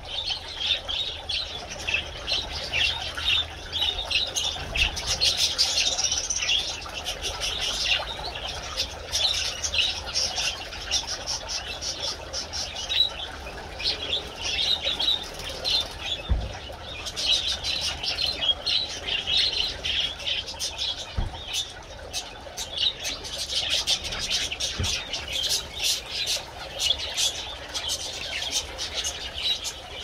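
A flock of small cage birds, mainly zebra finches, calling constantly in quick, short, high chirps, with a couple of brief low thumps partway through.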